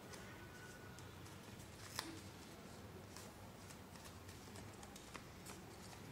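Faint paper handling: sheets of paper being folded and creased, with scattered light clicks and taps and a sharper tap about two seconds in.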